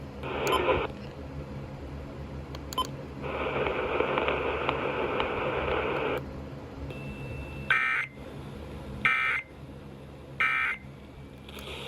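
Radio hiss, then three short, identical warbling digital data bursts about a second apart: the Emergency Alert System end-of-message code that closes a weather alert broadcast.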